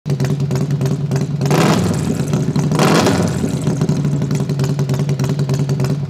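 Harley-Davidson Milwaukee-Eight 131 cubic inch V-twin running through a stainless 2-into-1 long exhaust, idling loud with a fast, even beat. Two short blips of the throttle come about one and a half and three seconds in.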